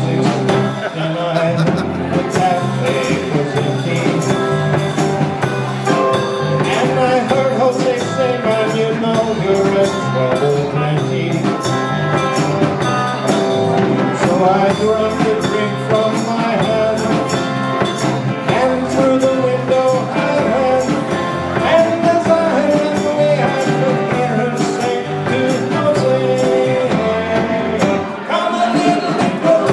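Live band playing vintage rock and roll with a steady beat.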